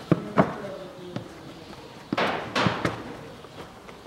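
Plastic air filter housing lid being fitted and pressed down by hand: a few sharp plastic knocks and clicks, then a longer rattling scrape with several knocks about two seconds in as the lid seats.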